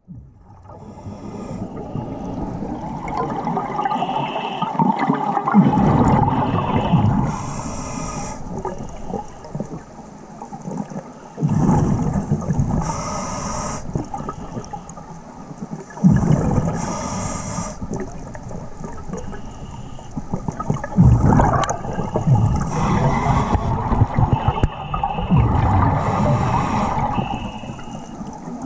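Scuba diver breathing through a regulator underwater: a short hiss on each inhale, then a longer bubbling rumble as the exhaled air escapes. About five breaths, roughly every four to five seconds.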